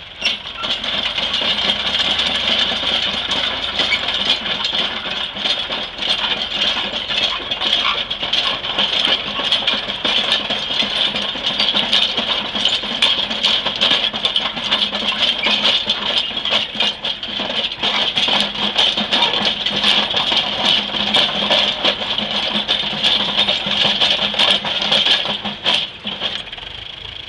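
Fordson Major Roadless half-track tractor pulling a sled at idle, a continuous loud metallic clattering and rattling of its steel tracks over the low running of the engine. The engine is held at idle because at higher revs the tracks just spin. The clatter cuts off near the end.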